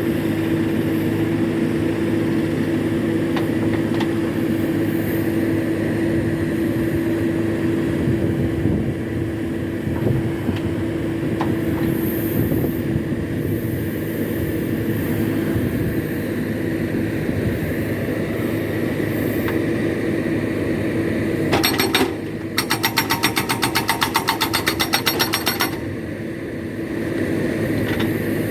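A backhoe loader's engine runs steadily. About 22 seconds in, a hydraulic rock breaker starts hammering in a rapid, even burst of about seven blows a second, lasting roughly three seconds.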